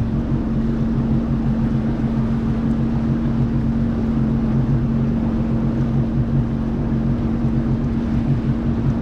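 Sea-Doo jet ski cruising at a steady low speed: an even engine hum that holds its pitch, over water and wind noise.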